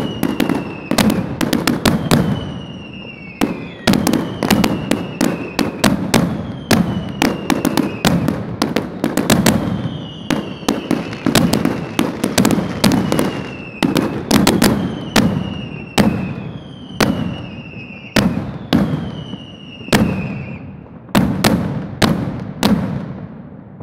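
Aerial fireworks bursting overhead: rapid clusters of sharp bangs over a low rumble, with a high falling whistle every second or two. The bangs thin out near the end.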